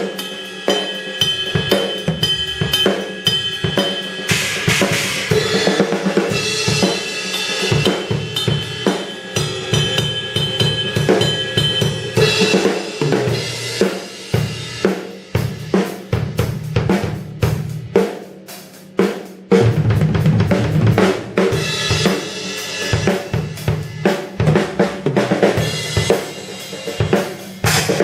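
Sonor Force 2007 drum kit with Paiste cymbals played solo: snare, bass drum, hi-hat and crash cymbals in busy grooves and fills. Past the middle it thins to sparser single strokes, then the full kit comes back in loud with cymbals ringing.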